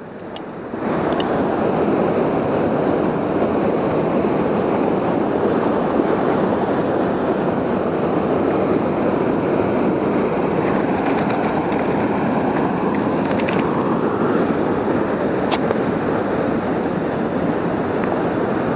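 Steady rush of river water pouring over a dam, with a few faint clicks.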